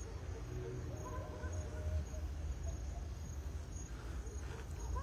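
Crickets chirping: a thin, steady high trill with short regular breaks, over a low hum.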